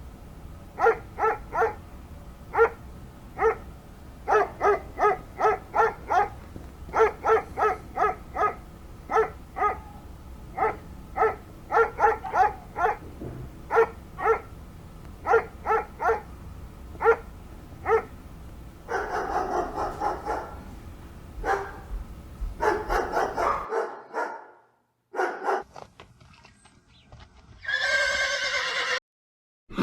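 A long run of short, repeated animal calls, about one or two a second, followed by a few longer animal calls.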